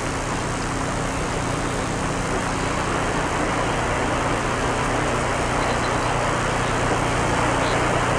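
Steady drone of jet aircraft engines and rushing air as heard aboard a chase plane in flight, with a steady low hum running through it.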